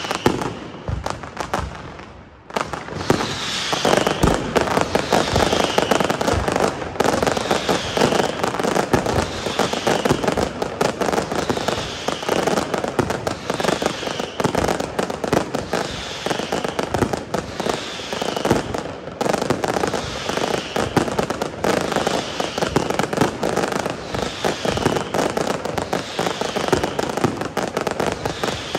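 Fireworks castillo by Pirotecnia Tomás: a dense, continuous barrage of crackling and banging shells, with a brief lull about two seconds in. A short, high falling whistle-like tone recurs about every two seconds over the barrage.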